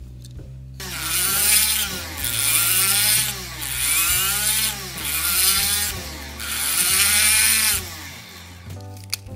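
Small handheld rotary tool drilling out the rivet on the base of a die-cast Hot Wheels car, the step that opens the body from the chassis. It runs in about five bursts, starting about a second in, with a whine that rises and falls in pitch as the bit bites into the rivet.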